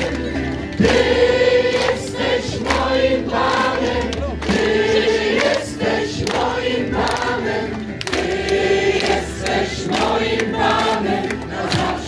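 A large crowd singing together like a choir, without clear words, to rhythmic hand clapping.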